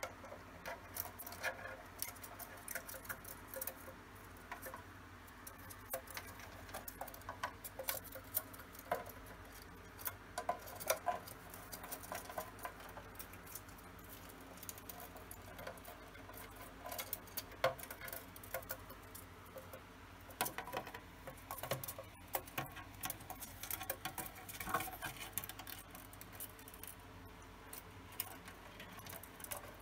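Cockatiel's claws and beak tapping and scraping on a plastic dollhouse as it climbs about: irregular small clicks and scratches.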